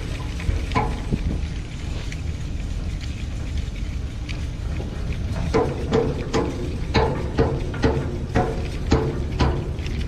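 Steady low rumble of a cargo ship underway, with wind on deck. In the second half a ballast-tank sounding tape is being reeled in by hand, with a run of sharp clicks about two a second.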